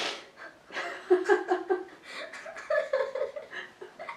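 A girl laughing in excited surprise, close to tears: a sharp intake of breath at the start, then two runs of quick, rapid giggles.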